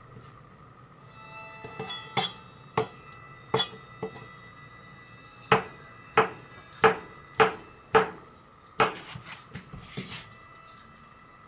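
Kitchen knife chopping konjac on a cutting board: the blade knocks sharply on the board, a few scattered strokes and then a steady run of about six chops roughly half a second apart. Softer clicks follow near the end.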